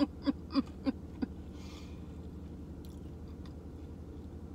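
A woman chewing a mouthful of cookie, with a quick run of short 'mm' sounds of enjoyment, about three a second, that trail off a little over a second in; quieter chewing and a few faint clicks follow.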